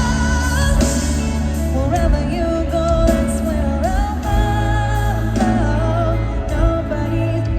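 Live pop song with a singing voice over the band and a heavy bass through a stadium sound system.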